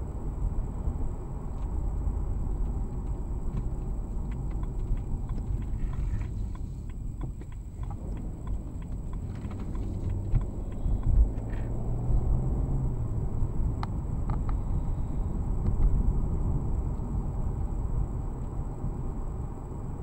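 Car cabin road and engine noise picked up by a dash cam: a steady low rumble from a BMW 335i's turbocharged straight-six and tyres, easing as the car slows, then the engine note rising as it accelerates again about halfway through.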